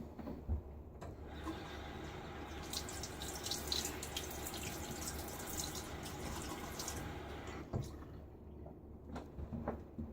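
Tap water running into a bathroom sink, starting about a second in and stopping near the eighth second, with a few short knocks around it.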